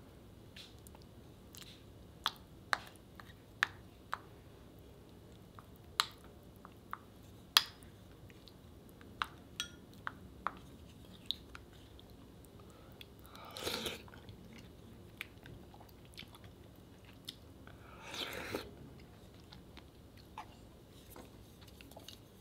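Close-up eating sounds from a bowl of soft-tofu ramen soup and rice: scattered sharp clicks and taps from the wooden spoon and mouth while chewing, and two short slurps in the second half.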